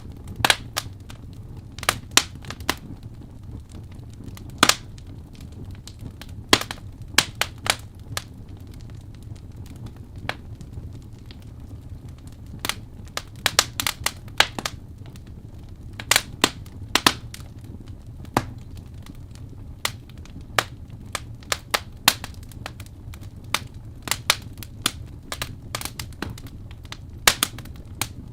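Wood fire in a fireplace crackling: sharp irregular pops and snaps, a few a second at times, over a steady low rumble of the flames.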